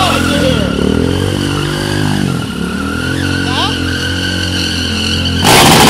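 Stunt motorcycle engine revving, its pitch falling and climbing again several times as the rider holds the bike through a wheelie. Near the end a loud rush of noise breaks in, typical of a rear tyre skidding on the pavement.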